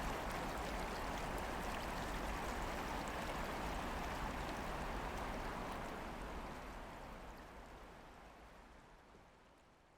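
Steady rushing noise like flowing water, fading out gradually over the second half.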